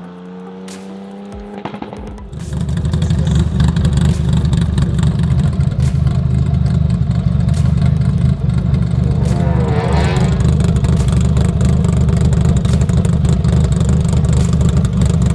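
Car engine running: a rising engine note for about the first two seconds, then a loud, steady low rumble, with a brief up-and-down sweep in pitch about ten seconds in.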